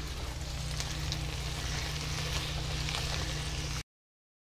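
Vegetables sizzling as they fry in a pan while being stirred with a spatula, with a few light clicks of the spatula against the pan over a steady low hum. The sound cuts off abruptly near the end.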